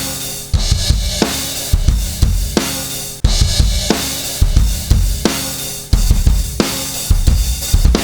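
Drum kit loop playing a steady beat of kick, snare and cymbals, run through the KIIVE XTMax compressor plugin.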